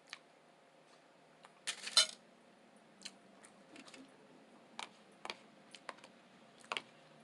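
Close-miked chewing of a burrito: a string of sharp, wet mouth clicks and smacks at irregular intervals, with one louder, noisier burst about two seconds in.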